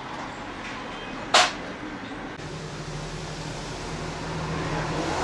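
A single sharp knock about a second in, then a steady machine hum starts about halfway through and grows louder.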